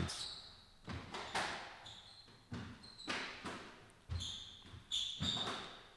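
A squash rally: the ball cracks off rackets and the court walls every half second to a second, each hit echoing in the court. Short high squeaks of court shoes on the wooden floor come between the hits.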